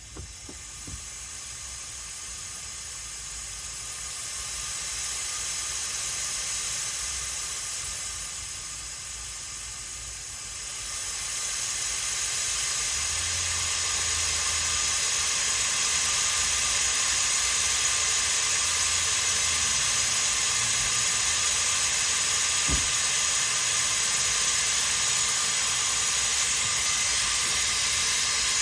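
Compressed air hissing steadily as it is fed at low pressure into a car's cooling system through a leakage tester, getting louder about eleven seconds in. The air escaping is the sign of a leak in the cooling system.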